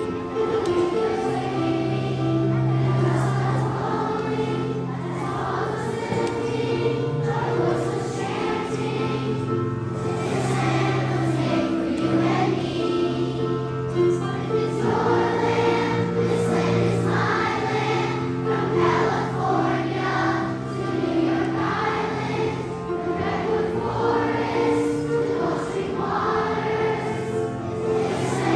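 Children's choir singing a song with an instrumental accompaniment, the accompaniment holding steady low notes under the voices.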